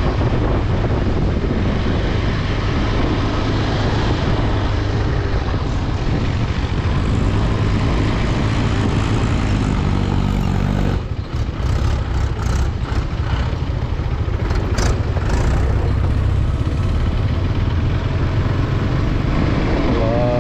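Motorcycle engine running under way with wind rushing over the microphone. Around the middle the engine note climbs steadily, then drops briefly as the throttle comes off, followed by a few sharp clicks and knocks.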